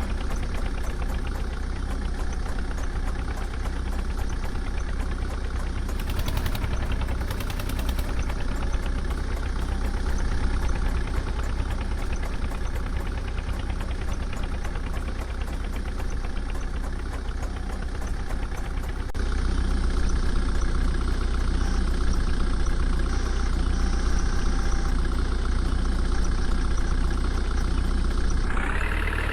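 Diesel engine of heavy farm or construction machinery running steadily. About two-thirds of the way in, the sound steps up louder and carries on.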